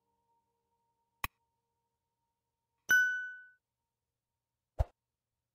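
Sound effects of an animated subscribe button: a short mouse click about a second in, then a bright bell ding that rings out for about half a second, and a short low thud near the end.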